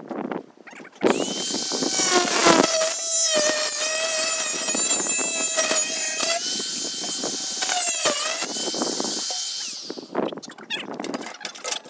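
Hand-held electric power tool starting up about a second in and running under load on the steel of a pail can, its motor whine wavering in pitch, then stopping near the end.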